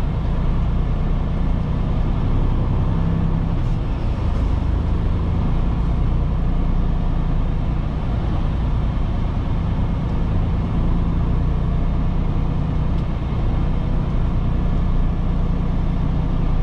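Semi truck's diesel engine running steadily at low speed, a constant low drone heard from inside the cab as the truck rolls slowly along.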